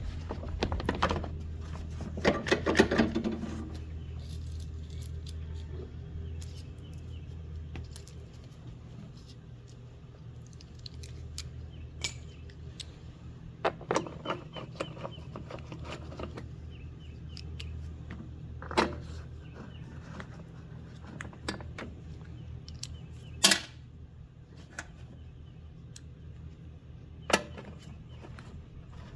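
Scattered metallic clicks and clinks of tools and small engine parts being handled as the mower is put back together, over a steady low hum.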